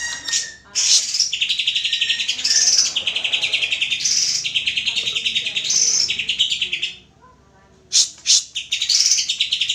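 Cucak ijo (green leafbird) singing: long, rapid, high trilled phrases with sharper notes above them, breaking off for about a second after about seven seconds, then starting again with a few sharp calls before the trill resumes.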